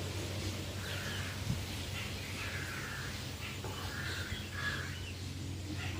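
Crows cawing a few times in short, harsh calls over a steady low hum.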